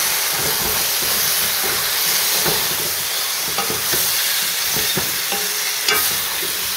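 Floured lamb pieces sizzling in an enamelled cast-iron cocotte while a wooden spoon stirs and scrapes them to brown the flour. There is a sharper knock of the spoon against the pot about six seconds in.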